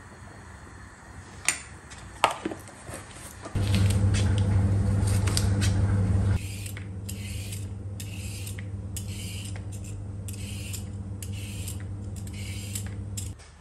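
Kitchen prep sounds: a spoon clinking on a glass jar, then a knife tapping through bell pepper on a plastic cutting board, then a vegetable peeler scraping down a carrot in regular strokes, about two a second. A steady low hum runs under the cutting and peeling.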